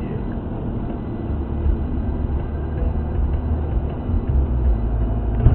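Road and engine noise heard inside a moving car: a steady low rumble, with a brief thump near the end.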